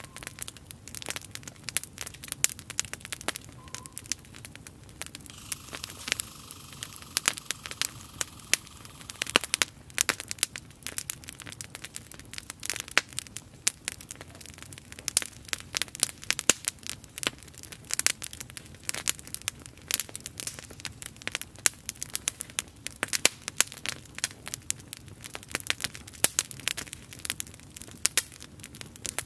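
Wood campfire crackling and popping: irregular sharp snaps over a low steady burning sound. A steady hiss joins in for about four seconds, some six seconds in.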